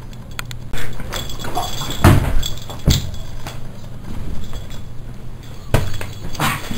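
Handling noise from a camera being jostled and swung about: a string of thumps, knocks and clatter, loudest about two seconds in, over a steady low hum.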